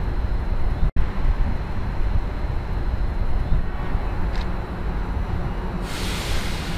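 Vintage Tait electric train approaching on an elevated track: a steady low rumble, broken by a brief dropout about a second in. A hiss starts suddenly near the end.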